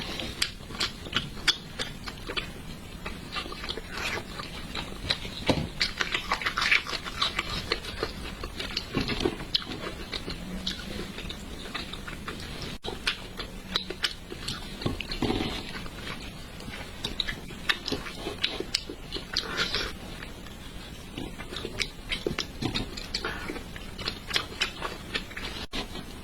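Close-up mouth sounds of someone eating spicy braised fish: wet chewing and lip smacking, heard as an irregular run of short smacks and clicks.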